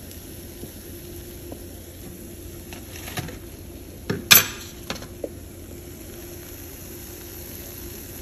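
Low steady sizzle of oil frying in a pan on a gas stove. A few clinks and knocks of a spatula against the pan come through it, the loudest about four seconds in.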